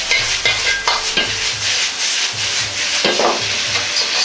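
Cabbage and snap peas sizzling in a heavy Chinese wok over a high gas flame. A metal ladle is stirring them, with a few sharp scrapes and knocks against the wok.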